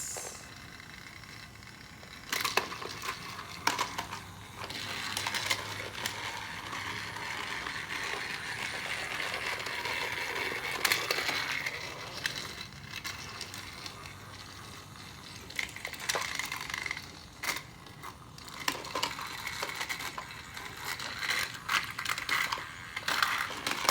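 Small plastic toy pieces and packaging being handled, with scattered clicks and light knocks. A stretch of steady rustling sits in the middle, and the clicks come more often near the end.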